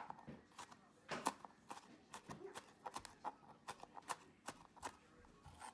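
Kitchen knife chopping and mincing chilies and garlic on a cutting board: quick, uneven knocks of the blade on the board, about three to four a second.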